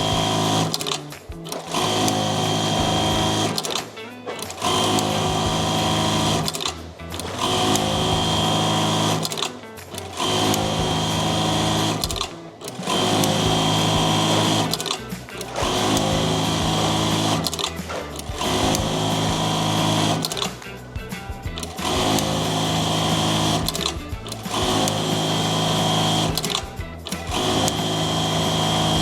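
Jaktec 1790 electronic buttonhole sewing machine running one buttonhole cycle after another: fast steady stitching broken by a short pause about every two and a half to three seconds.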